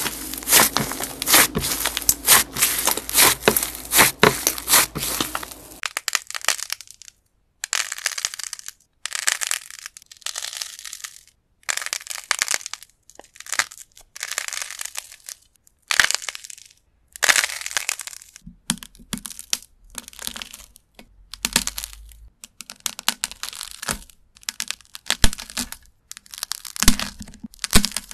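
Hands kneading soft white putty, a dense run of sticky crackling and popping for about the first six seconds. Then clay fruits with a dry, crumbly filling are broken open and crushed: separate bursts of crunching and crackling with short silent gaps between them.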